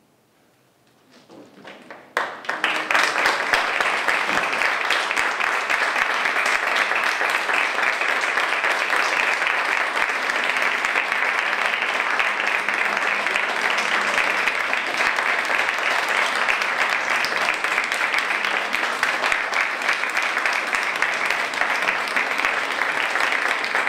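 Theatre audience applauding. A few scattered claps come about a second in, then full, steady applause from about two and a half seconds on.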